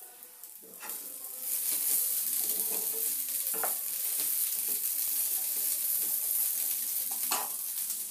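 Hands squeezing and mixing chicken pieces coated in rice flour and cornflour in a glass bowl: a steady, crackly rustle that starts about a second in, with a few light knocks.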